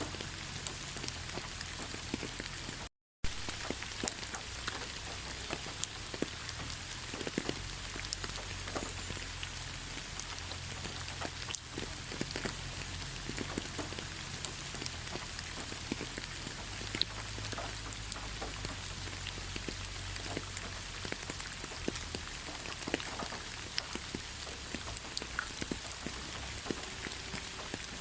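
Gentle rain falling steadily, with many individual drops ticking close by. The sound cuts out completely for a fraction of a second about three seconds in.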